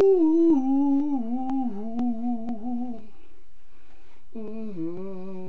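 A man humming a jingle-like tune in held, wavering notes. He breaks off about three seconds in and starts again a second later. Faint sharp ticks come about twice a second.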